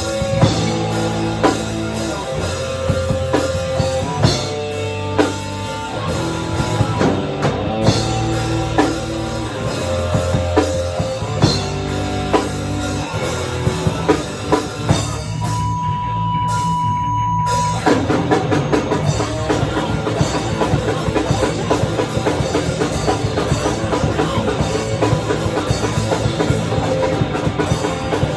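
Loud heavy rock band playing, with drum kit and distorted guitar. About fifteen seconds in the band drops out, leaving one steady high tone for under two seconds, then it comes back in busier and denser.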